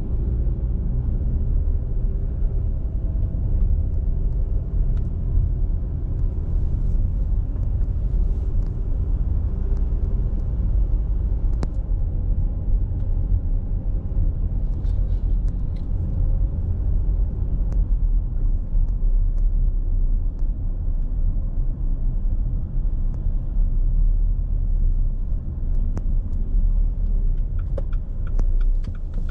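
Car driving slowly: a steady low rumble of engine and tyre noise.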